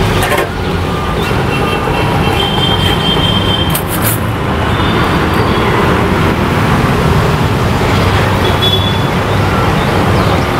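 Steady road traffic noise, a continuous rumble of passing vehicles, with a few short high tones and a brief sharp clink about four seconds in.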